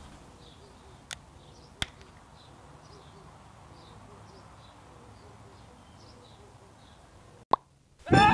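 Faint outdoor background with light bird chirps and two small clicks in the first two seconds. About seven and a half seconds in, a sharp pop, the film's teleport sound effect, is followed by a moment of silence, then loud music cuts in.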